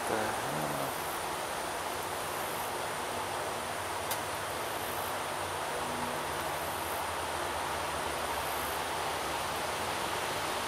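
Steady outdoor background hiss with faint, high-pitched insect chirps repeating every second or two, and a single sharp click about four seconds in.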